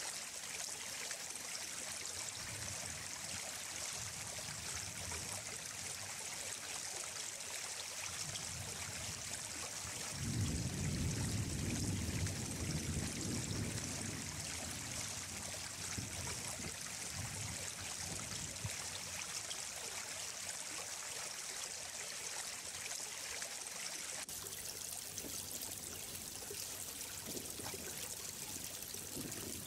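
Running water flowing steadily, a continuous splashing stream. About ten seconds in, a low rumble swells for a few seconds and fades back under the water.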